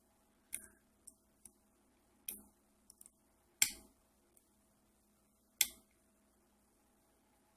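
Lock pick and tension wrench working in a custom-pinned pin-tumbler padlock, giving sharp, separate metal clicks at irregular intervals as pins are lifted and set. The two loudest clicks come about three and a half and five and a half seconds in.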